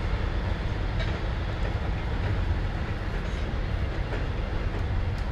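Passenger train rolling past, a steady low rumble of wheels and cars on the rails.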